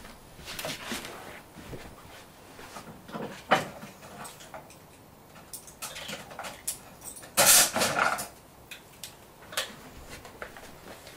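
Scattered small clicks and brief rustles of handling, with one louder rustling hiss lasting under a second about seven and a half seconds in.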